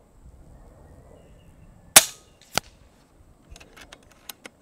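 FX Wildcat MK2 .25 regulated PCP air rifle firing one shot: a sharp report with a short decay, followed about half a second later by a fainter crack. Near the end, a quick series of light metallic clicks as the side lever is cycled to chamber the next pellet.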